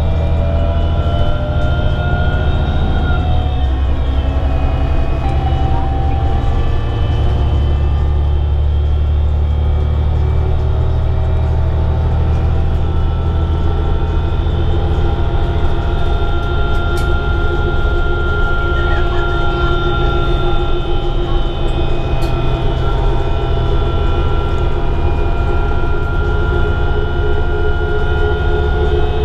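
Heard from inside the cabin: a 2011 New Flyer D60LFR articulated diesel bus under way, with a steady low drone and a whine from the driveline. The whine drops in pitch about three seconds in and then holds steady.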